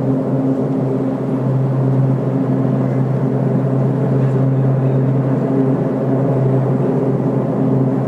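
Steady low droning hum from the sky, made of several steady pitches held at an even level with no rise or fall, like a plane that is passing but never passes.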